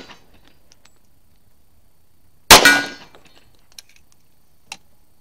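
A single .45 ACP pistol shot from a Kimber Aegis Elite Pro 1911 about two and a half seconds in, loud and sharp with a ringing tail that dies away over about half a second. The tail of the previous shot fades out right at the start.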